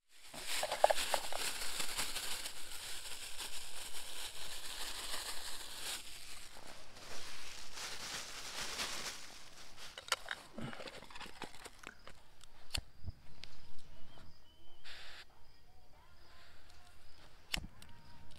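Plastic packaging rustling and crinkling while raw pork belly slices are emptied into an aluminium camping pan. It is followed by quieter handling noise with a few sharp clicks.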